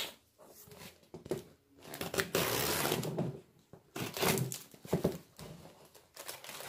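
Packing tape being ripped and torn open on a cardboard parcel, worked loose with a screwdriver. One long rip comes about two seconds in, followed by several shorter tearing rasps.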